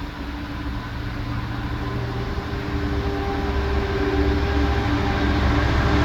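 Class 66 diesel locomotive's two-stroke V12 engine running under power as it approaches hauling a container train, growing steadily louder.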